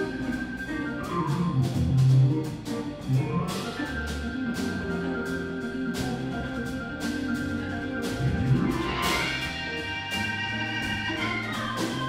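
Live blues band playing a swinging instrumental, with a Hammond-style organ carrying the lead over drums, bass and guitar and evenly spaced cymbal strokes. About nine seconds in, the lead rises in a glide.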